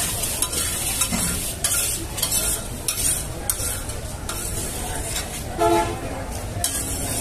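Metal spatula scraping across a large flat iron frying pan, spreading sizzling hot oil in repeated sweeping strokes. One brief louder tone sounds about five and a half seconds in.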